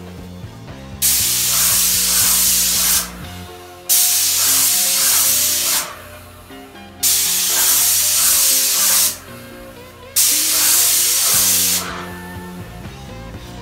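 Graco 390 airless paint sprayer's gun spraying paint onto a wall: four loud bursts of hiss, each about two seconds long, that cut in and out sharply as the gun is triggered and released. Background music plays underneath.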